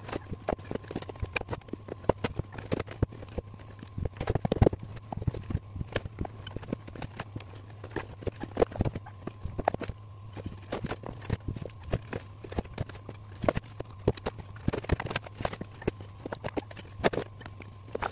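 Rapid, irregular knocking and tapping of hand tools at work in building demolition, over a steady low hum.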